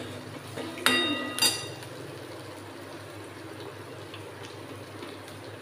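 Steel spoon clinking twice against a steel kadhai about a second in, each strike ringing briefly, followed by a steady low hiss.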